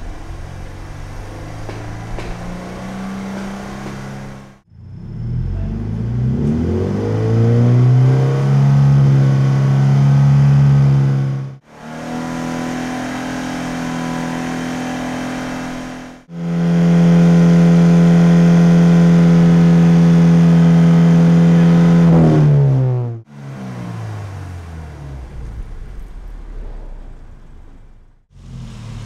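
A Scion FR-S's 2.0-litre flat-four engine running through its stock exhaust, heard from behind the car in short test clips with abrupt cuts between them. It is revved and held steady at 4,000 rpm, then held steady and louder at 5,000 rpm, and near the end it drops back toward idle.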